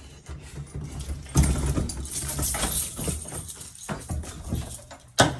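Clattering and rustling as the wires and hardware are handled, then a single sharp, loud pop near the end as excess line power is put onto a Notifier heat detector's SLC wiring.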